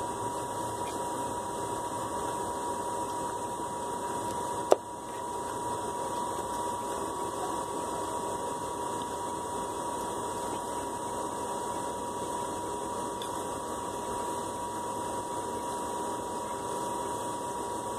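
Steady background hiss with a faint high steady tone, broken once by a sharp click about five seconds in.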